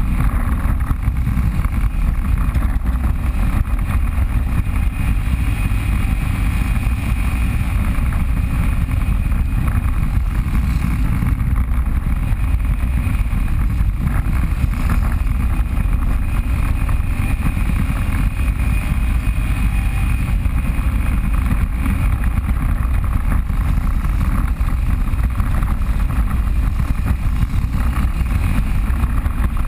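Off-road vehicle riding a trail: loud, steady engine and riding noise, strongest at the low end, with no breaks.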